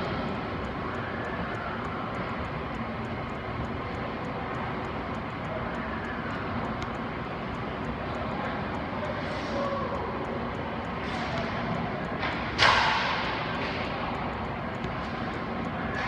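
Steady background noise of an indoor ice arena, with a couple of faint brief scrapes and one loud sharp smack of a hockey shot about three-quarters of the way through, ringing off the arena walls for about a second.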